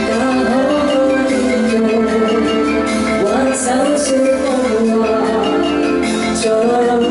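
A female singer performs a Cantonese pop ballad live into a microphone over a backing track, amplified through a PA system.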